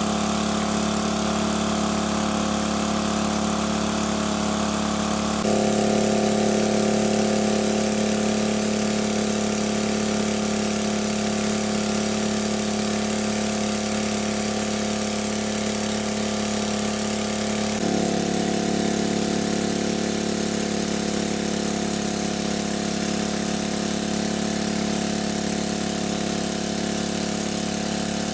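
A small engine running steadily at a low, even speed. Its tone changes abruptly twice, about five seconds in and again about eighteen seconds in.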